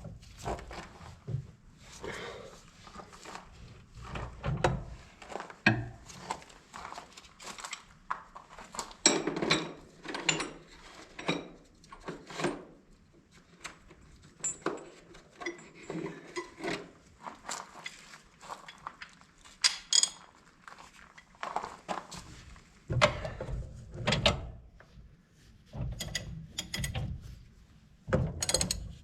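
Irregular metal clanks, clinks and knocks of hand tools and steel parts being handled while a corn planter's wheel hub and bearings are taken apart, with a few heavier thumps near the end.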